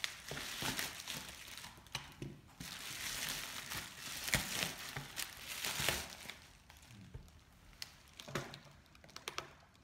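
Plastic bubble wrap crinkling and rustling as it is pulled off a box by hand, with sharp crackles. After about six seconds the rustling thins out to a few light clicks.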